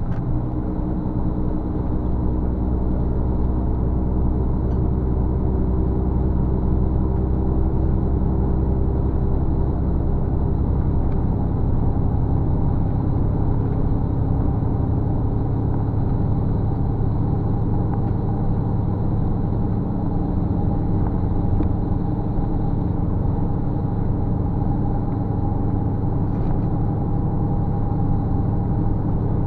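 Steady engine drone and road rumble of a moving road vehicle, heard from inside its cabin.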